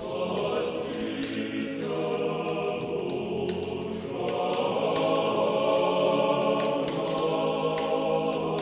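Choir singing unaccompanied Orthodox church chant in long, held chords. It comes in suddenly at the start.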